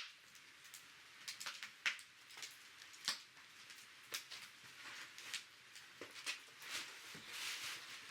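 Wood fire crackling, with irregular sharp pops and snaps and a short hiss near the end.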